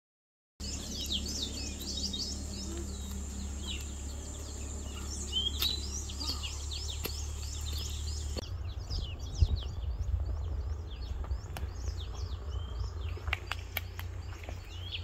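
Many small birds chirping, with short quick calls overlapping continuously over a steady low rumble. A few sharp clicks come near the end.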